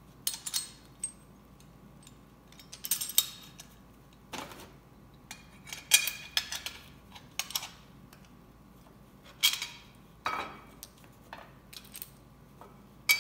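Steel bolt, weld washers and heim joint clinking and clicking against one another and the steel link-mount plates as they are handled and fitted together. The clinks are scattered and irregular, each with a brief metallic ring.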